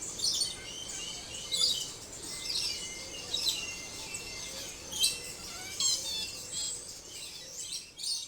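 Several wild birds chirping and singing in quick short calls and trills, one after another, over a faint steady hiss of mountain-forest ambience.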